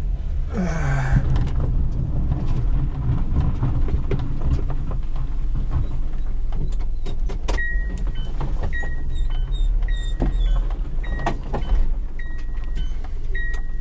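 Car cabin with steady engine and road rumble as the car is driven. From about halfway through, a dashboard warning chime sounds a string of short, high beeps, roughly one a second.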